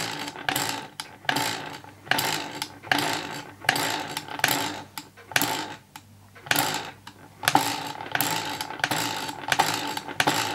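Scratch-built half-beam electromagnet engine running slowly and unevenly: a rhythmic clatter of clicks, a little over one beat a second, as the coils pull the beam and the arm on the wooden flywheel makes and breaks the circuit. It falters briefly a little past halfway, running only just, with dirty contacts and loose coils and frame.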